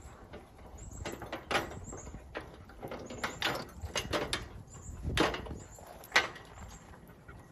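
Irregular knocks, rattles and scuffs as a puppy is handled and fastened to a back-tie line, with a few sharper knocks about a second and a half, five seconds and six seconds in.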